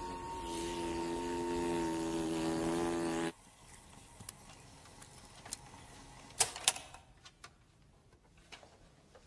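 A held, droning chord of steady tones cuts off suddenly about three seconds in. Then, over a quiet room, two sharp clicks come close together a little past halfway, from the controls of a portable reel-to-reel tape recorder being worked.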